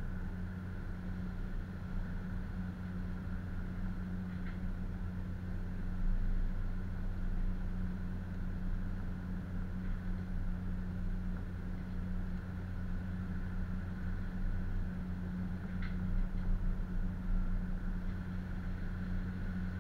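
Tugboat's engines running as a steady low drone, heard from inside the wheelhouse, with a faint higher whine over it and a few light clicks.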